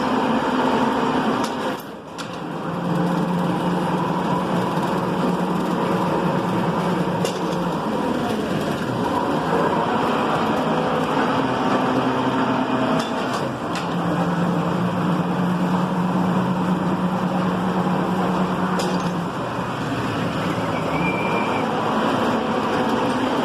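Metalworking machine tools running steadily in a machine shop, with a low hum that comes in twice for about five seconds each.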